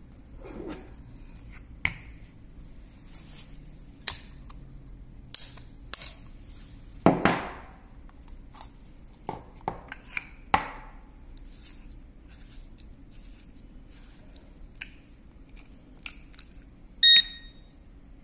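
Plastic clicks, knocks and rattles as a spider-wrap security tag is unlocked, its cables pulled off a tin and the tag set down on a hard table. Near the end comes one short, loud electronic beep.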